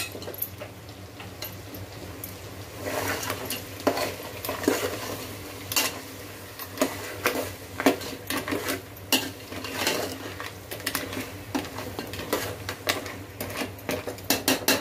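Steel ladle scraping and clinking against the side of an aluminium pot in irregular strokes, stirring thick ground masala paste into crab curry, over a steady low hum.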